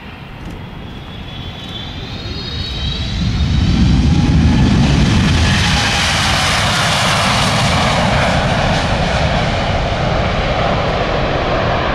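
Boeing 787 Dreamliner's twin turbofan engines at takeoff thrust as it rolls past and lifts off. The jet noise swells to loud about three seconds in, with a high whine that falls in pitch as the aircraft passes.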